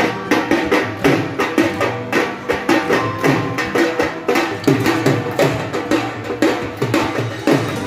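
Dappu frame drums beaten in a fast, even rhythm of sharp strikes, several a second, with pitched instrument tones sounding over them.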